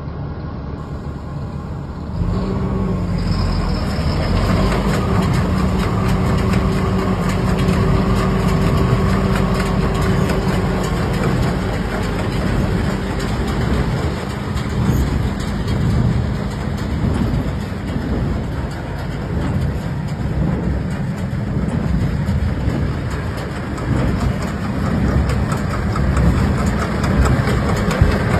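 Tractor engine running a New Holland BigBaler 330 large square baler, engine and baler machinery running steadily. It gets louder about two seconds in, with a steady whine held for roughly the next ten seconds.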